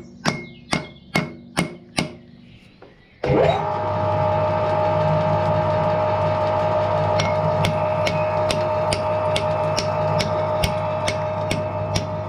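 Hammer blows, a little over two a second, for about two seconds. After a short pause, a steady droning sound with a regular faint ticking starts abruptly about three seconds in and carries on.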